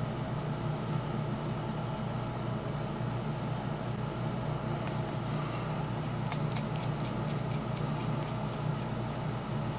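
Steady low mechanical hum, with a scatter of small light clicks in the second half, like small parts or tools being handled on a workbench.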